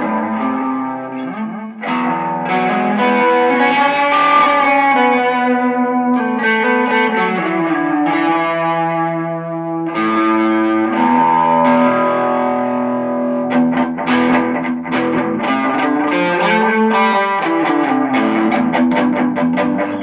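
Electric guitar, a Squier Telecaster played through the amp's crunch channel with a DIY kit delay pedal set to a short slapback with few repeats. Sustained chords and ringing single notes give way, about two-thirds of the way in, to quicker picked notes.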